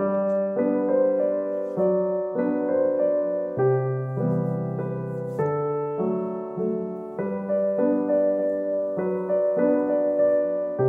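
Soft background piano music: chords changing every half second to a second over a steady bass line.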